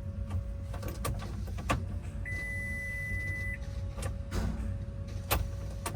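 Diesel engine being cranked by its starter motor in severe cold without catching, on a weakening battery, with a steady whine over a low rumble. A single electronic beep sounds for about a second and a half, about two seconds in.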